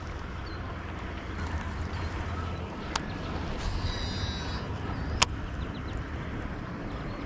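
Wind rumbling on the microphone, with two sharp clicks about three and five seconds in and a brief high trill a little before the second click.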